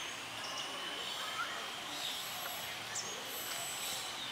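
Outdoor ambience: a steady insect drone with a few short bird chirps.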